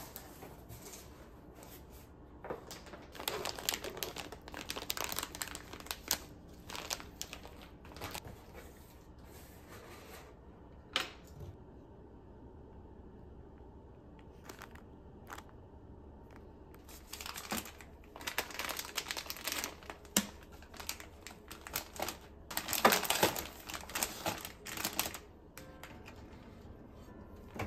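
Plastic bags of dashi packs and a cardboard box being unpacked by hand: crinkling and rustling in three long spells, with a couple of sharp clicks between them.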